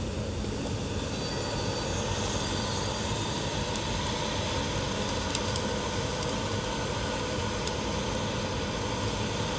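Caterpillar 568 forest machine's diesel engine running steadily while the machine swings its boom, with a few faint light ticks now and then.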